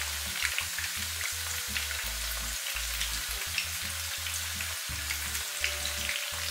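Battered bananas deep-frying in hot oil in a pan: a steady sizzle with scattered pops and crackles as thin batter is drizzled into the oil to build a crispy, curly coating.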